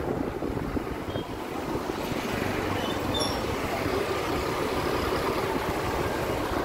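Steady engine and road noise of riding along a street among motor scooters, a continuous low rumble with no single event standing out.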